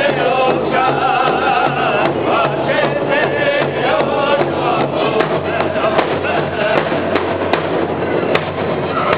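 Powwow drum group: several men singing together in unison over a large hide-covered drum struck together with beaters in a steady beat.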